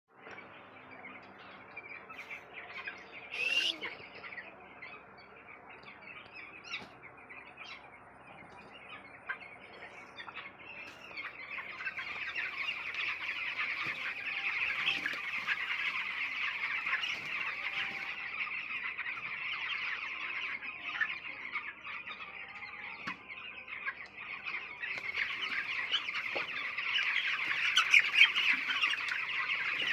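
A flock of chickens clucking and calling all at once, a dense chatter that grows louder about twelve seconds in, with one loud squawk a few seconds in.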